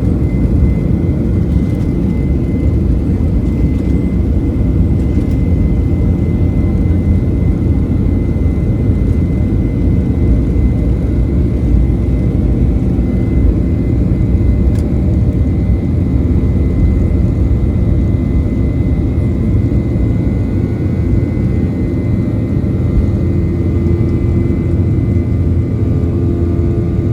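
Boeing 737-800's CFM56 turbofan engines running loud and steady: a deep, even rumble with a thin, steady high whine over it.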